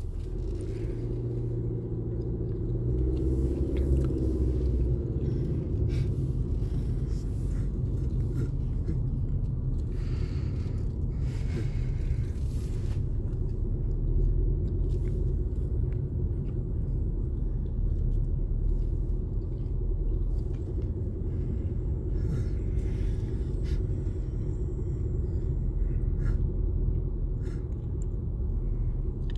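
Steady low rumble of a vehicle driving along, heard from inside the cabin: engine and tyre noise.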